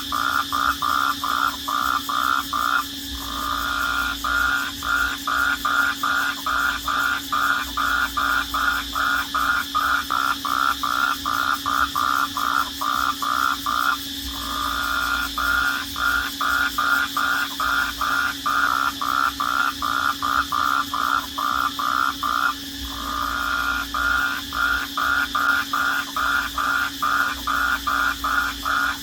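Night chorus of crickets trilling steadily. Over it, a louder pulsed call repeats about three times a second, stopping briefly three times and starting again.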